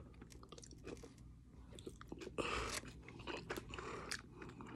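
A person chewing a mouthful of burger close to the microphone, with small mouth clicks and a louder stretch of chewing noise about halfway through.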